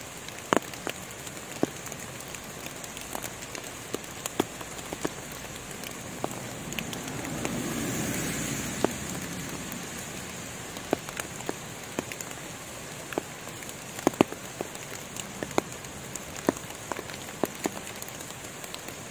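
Rain falling in forest: a steady hiss of rain with irregular sharp drops tapping on leaves, swelling louder for a couple of seconds around the middle.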